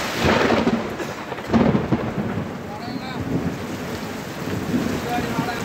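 Heavy rain falling steadily, with two loud claps of thunder, the first just after the start and the second about a second and a half in.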